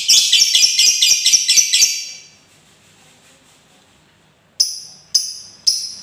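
Lovebird giving a fast chattering 'ngekek' trill, about six or seven notes a second, for about two seconds. After a pause, shrill sharp calls start about two-thirds of the way in and repeat about twice a second.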